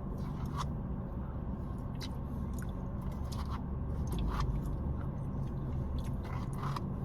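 Close-up eating sounds from a bowl of mashed potatoes and gravy: soft chewing with a few short clicks and scrapes scattered through, over a low steady hum.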